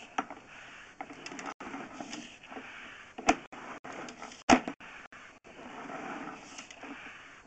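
Sewer camera push cable being fed through the cleanout into the pipe: an uneven rustling scrape with scattered small clicks and two sharp knocks, the louder one about four and a half seconds in.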